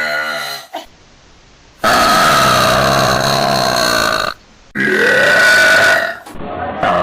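Girls burping loudly, one clip after another: the tail of one burp at the start, then a long burp of over two seconds, then a shorter burp that rises in pitch at its start, with another beginning right at the end.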